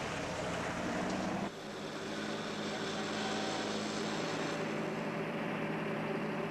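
Car engine running with a steady drone as the car drives at night; the sound shifts abruptly about a second and a half in, then the steady engine hum carries on.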